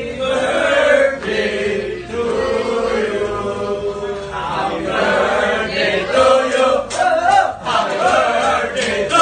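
A group of people singing together, long held notes at first, then shorter, louder phrases from about five seconds in.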